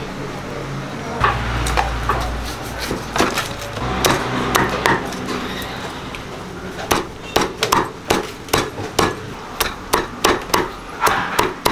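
Meat cleaver chopping crispy fried pork belly and fried tofu on a wooden chopping board: sharp knocks, a few at first, then about two a second in the second half.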